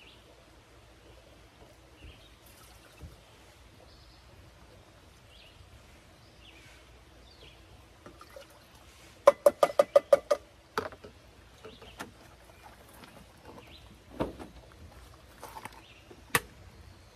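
Water glugging out of a plastic gallon jug in a quick run of loud pulses about halfway through, as it is measured into a rice cooker. A few single clicks and knocks follow, the sharpest near the end as the rice cooker's lid is shut.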